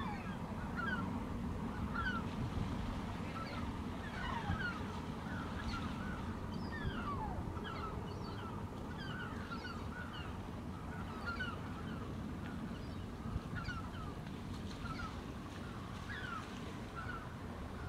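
Birds calling over the water: many short, downward-sliding calls, several a second, over a steady low rumble.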